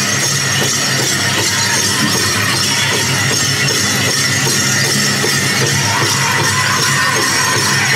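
Powwow music with a dense, steady metallic jingling from dancers' regalia, heard as one continuous wash of sound.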